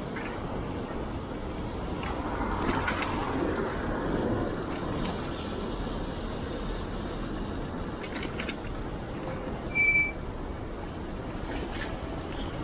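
City street traffic: a steady rumble and hiss of passing vehicles, with a short high-pitched tone a little before the end, the loudest moment.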